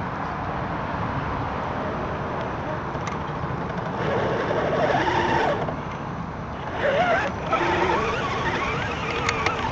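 Steady running noise of an RC scale crawler driving over a dirt trail, picked up by a camera mounted on the truck. Voices talk faintly about halfway through and again near the end.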